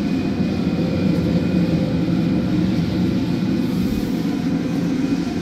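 Diedrich drum coffee roaster running: a steady, low mechanical whir of its motor and fan, with the beans in its cooling tray.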